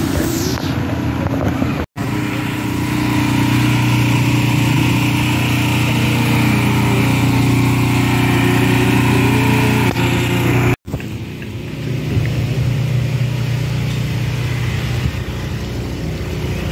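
A small engine running steadily close by, a steady hum with a hiss over it. The sound drops out abruptly about two seconds in and again near eleven seconds, and after that the engine is quieter.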